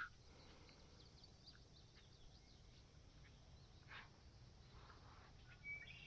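Near silence, with faint, scattered bird chirps and one short whistled note near the end.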